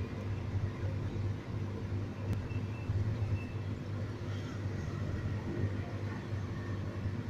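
Steady low hum of an aquarium pump, with a faint hiss over it.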